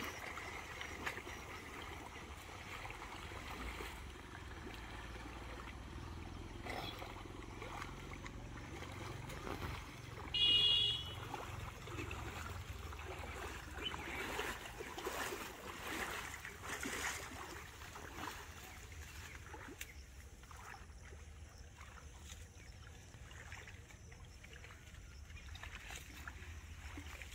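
Pond water sloshing and splashing as a drag net is hauled through it by hand, with small splashes and knocks throughout. About ten seconds in comes one brief, high-pitched call of a few tones, the loudest moment.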